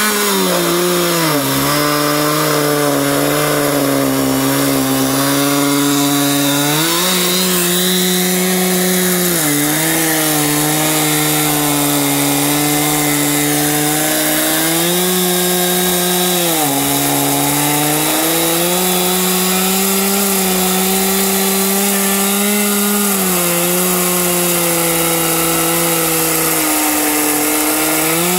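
Chainsaw running at high revs through a log in an Alaskan chainsaw mill. Its pitch steps down and back up every few seconds as the cut loads and unloads the engine.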